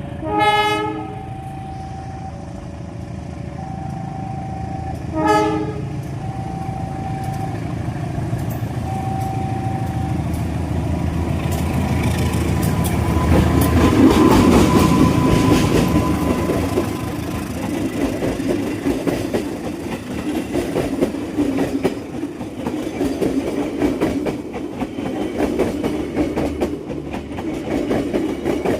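Train horn sounding two short blasts about five seconds apart, then the train approaching and passing close by. The running noise swells to its loudest about halfway through and goes on with rapid clickety-clack of wheels over rail joints. A short repeating electronic tone beeps during the first several seconds.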